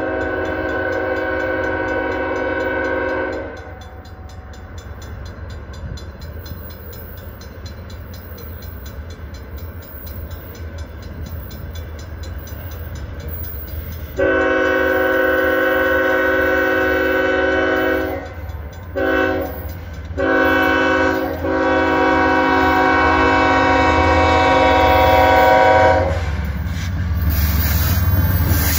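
Freight locomotive's multi-chime air horn sounding a chord for a grade crossing: one blast for the first few seconds, then a series of long and short blasts from about halfway in, the last one long. Under it a low diesel rumble grows louder as the train nears the crossing.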